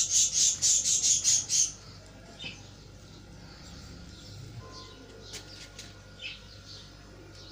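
A small bird chirping: a quick run of high chirps, about five a second, for the first couple of seconds, then a few scattered single chirps.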